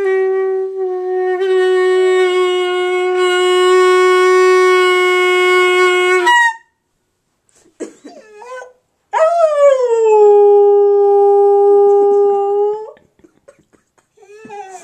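A dog howling along with a clarinet. A long, very steady clarinet-like note is held for about six seconds. After a pause with a few short whining slides comes a second long tone that swoops down in pitch and then holds for about four seconds, and short whines return near the end.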